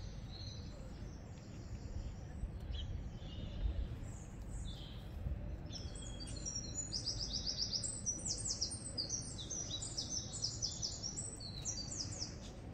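Songbirds singing in the background: a few scattered chirps at first, then from about halfway in a long run of rapid, repeated high notes, over a low steady outdoor rumble.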